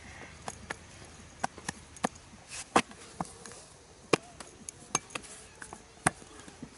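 Hand brick-moulding: a series of irregular sharp knocks and slaps of wet clay and the brick mould being struck and set down, the loudest two about three and four seconds in.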